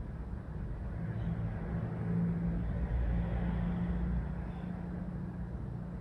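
A low mechanical hum and rumble that swells a couple of seconds in and eases off again.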